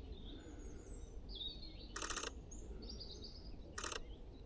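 Two short bursts of rapid camera shutter clicks from a Sony A1 mirrorless camera, about 2 s and 3.8 s in, over faint high chirps of small birds.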